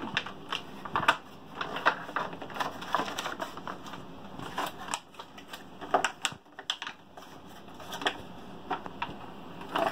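Plastic packaging and cardboard being handled: irregular crinkling with many sharp clicks and taps.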